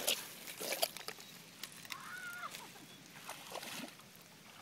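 Footsteps wading through shallow, muddy water: a few sloshing splashes in the first second, then fainter, scattered ones.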